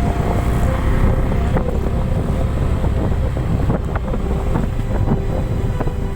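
Wind buffeting the microphone over the steady low rumble of a moving vehicle, with a few light clicks.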